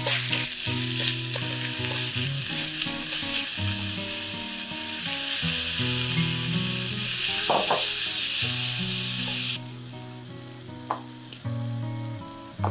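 Minced lamb sizzling in a hot wok as it is stir-fried with a spatula. About ten seconds in, the loud sizzle cuts off suddenly to a much quieter frying sound.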